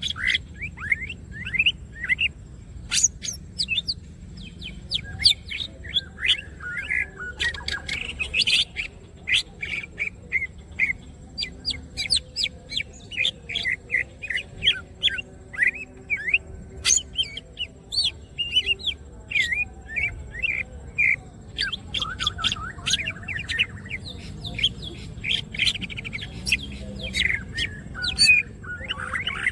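Green leafbird (cucak ijo) singing vigorously: a fast, unbroken string of short chirps and whistled notes.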